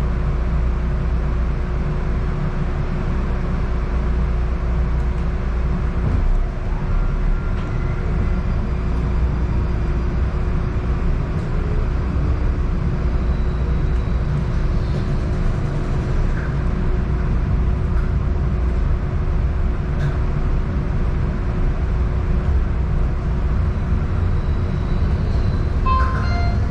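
Atlanta Streetcar heard from inside the car: a steady low rumble of the running gear and wheels on the track, with a faint steady hum over it. A short tone sounds right at the end.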